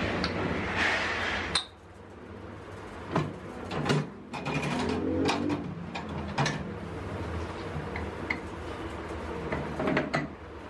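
Horizontal metal-cutting band saw running with a steady hum, while metal clanks and knocks at its vise and frame about eight times, at irregular moments.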